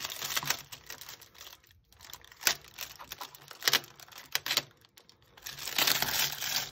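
Clear plastic packaging crinkling as it is handled and cut open with scissors, with several sharp snips and clicks, and a longer burst of crinkling near the end.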